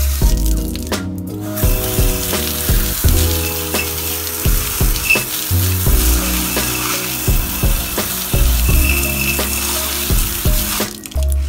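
Water from a garden hose spraying onto a car wheel and tyre, rinsing it off: a steady hiss that starts about a second and a half in and cuts off near the end. Background music with a steady beat plays underneath.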